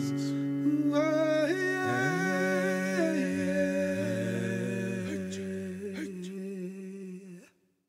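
The close of a song: a voice humming a wordless melody over held accompanying notes, growing quieter and then stopping abruptly about seven and a half seconds in.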